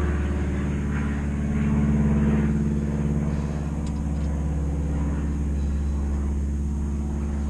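Steady low engine drone in the background, swelling a little and easing off, with a few faint metallic ticks of a spanner on the brake caliper bolts about four seconds in.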